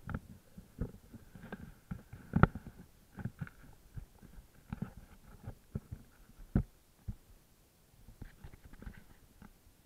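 Irregular muffled knocks and bumps of a wearable action camera being jostled as its wearer moves about, the loudest about two and a half seconds in and again near seven seconds.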